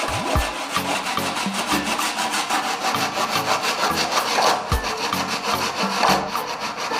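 Handsaw cutting across a pine board in back-and-forth strokes, the teeth rasping through the wood.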